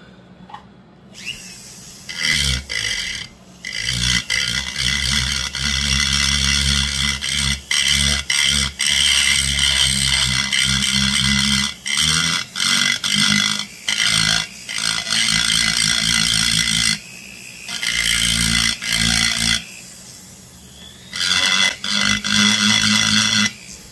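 Foredom flex-shaft rotary tool with a small burr grinding into the soft crankcase of a Homelite XL922 chainsaw, trenching the transfer passages. The cutting comes in passes with short stops, a steady high whine and the motor's hum running through it.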